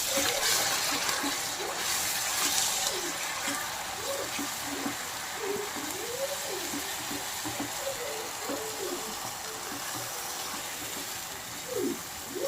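Onions and garlic paste frying in oil in a pan, a steady sizzle that is louder for about the first three seconds, then settles.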